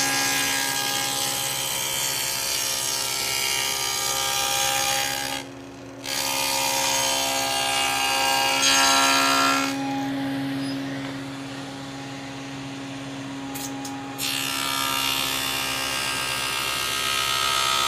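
Table saw with its blade cutting through a hardwood board. The cutting noise breaks off briefly about five seconds in. From about ten to fourteen seconds only the saw's steady running hum remains, then the cutting starts again.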